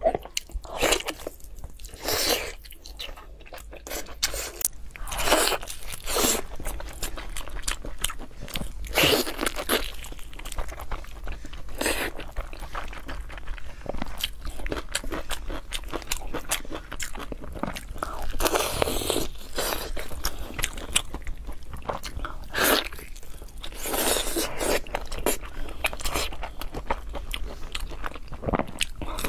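Close-miked eating sounds: repeated bites, crunches and wet chewing of braised food, including a glazed pork trotter and raw garlic cloves.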